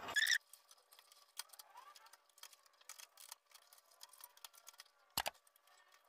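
Faint, irregular small clicks and taps of parts being handled while the heater is being put back together after the repair, with one sharper click about five seconds in.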